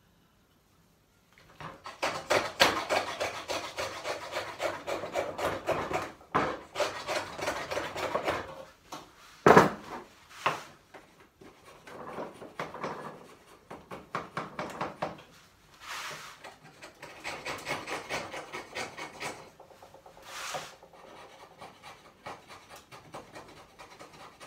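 A shoulder plane shaving the cheeks of a timber tenon: runs of quick rasping strokes across the wood, broken by one sharp knock about nine and a half seconds in.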